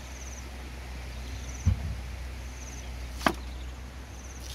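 A knife chopping pineapple: sharp knocks about three seconds in and again at the end, after a dull thump a little under two seconds in. A high, short insect chirp repeats about every second and a half.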